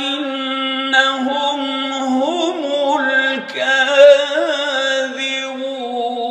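Male reciter chanting a Quran verse in melodic tajweed style, holding long drawn-out notes with ornamented pitch turns, with a brief dip in the voice about halfway through.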